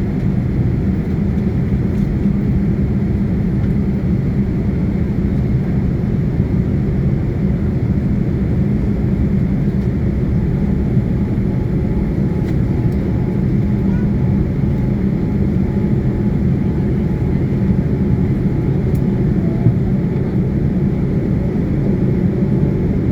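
Jet engines of a Saudia airliner running with a steady low rumble that holds at one level throughout.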